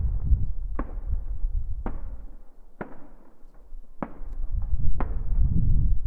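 Distant aerial fireworks shells bursting: five sharp bangs about a second apart, each trailing off in a rolling echo, over a low rumble.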